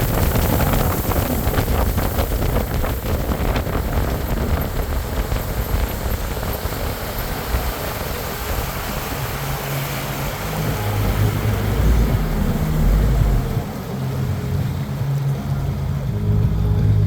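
Motorboat running over the water with wind buffeting the microphone. About halfway through, music with a low bass line comes in and carries on.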